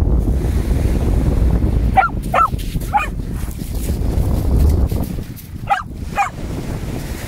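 English Springer Spaniel giving short, high play barks: three in quick succession about two seconds in, then two more near the end, over steady surf and wind noise on the microphone.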